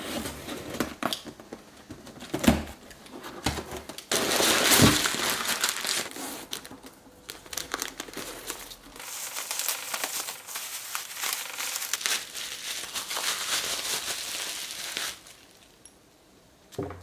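Parcel being unpacked: packing tape pulled off a cardboard box, then white wrapping paper rustling and crinkling as it is torn open and unwrapped, with scattered small clicks and handling knocks. The rustling dies away near the end, and a single short knock follows.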